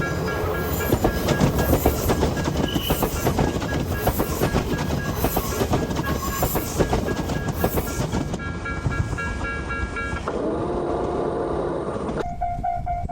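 A train passing close by, its wheels clattering rapidly over the rails. About ten seconds in the sound cuts away abruptly, and near the end a steady ringing tone pulses at an even rate, like a level-crossing warning bell.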